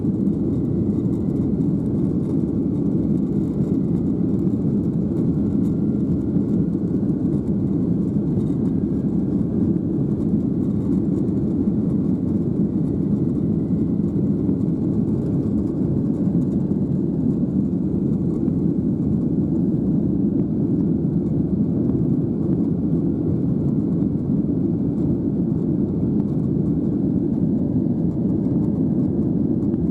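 Steady low rumble of an airliner cabin, the even drone of the aircraft's engines and air systems heard from inside, with no change in level.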